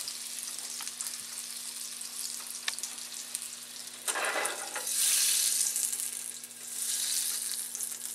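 Butter sizzling and bubbling as it melts in a small nonstick frying pan over high heat, overheating on its way to burning. The sizzle swells louder about four to five seconds in and again near seven seconds.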